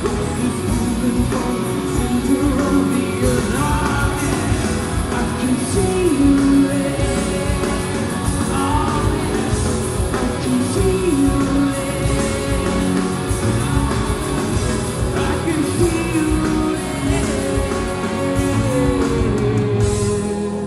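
Rock band playing live: electric guitars, drums and a male lead singer.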